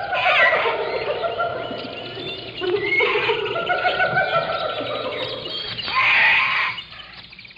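Many birds chirping and calling over one another in a dense chorus, with short rising and falling whistles. The chorus drops away sharply about seven seconds in.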